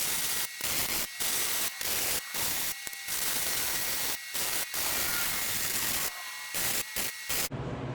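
Steel being cut with a cutting torch: a loud, steady hiss that cuts out sharply for a moment about a dozen times and stops near the end.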